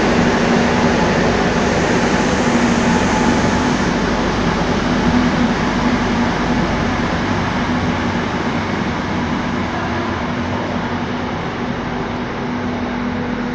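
Madrid Metro 2000B-series electric train pulling out of the station and running off into the tunnel. Steady rumble of wheels on rail with a low steady hum, fading gradually as the train draws away.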